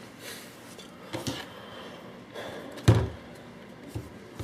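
A few hollow plastic knocks and clunks as a paintball hopper is handled, the loudest about three seconds in.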